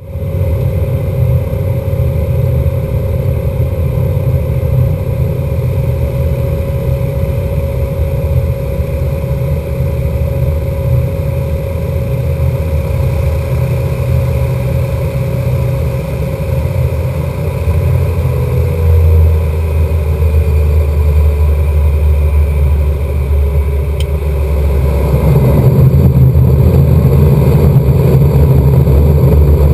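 Cabin noise of a Cessna 208 Caravan amphibian's single turboprop engine and propeller during a landing approach: a steady loud drone, with a thin tone that slides lower midway and the sound growing louder and fuller near the end.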